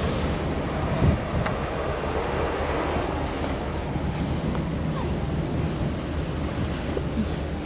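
Strong wind buffeting the microphone on a ferry's open deck, over the steady rush of a choppy sea and a low drone underneath.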